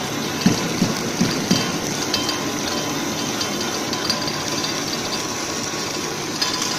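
Steady running noise of a twin-screw snack extrusion line making core-filled pillows, with four short knocks in the first second and a half.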